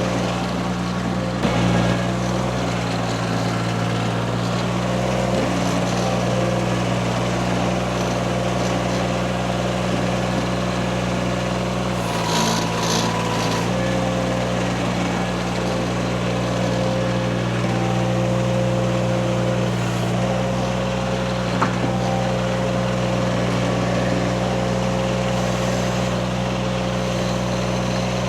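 Derette V1000 mini skid steer's engine running steadily under load as the machine lifts a small garage, its note shifting briefly about twelve seconds in.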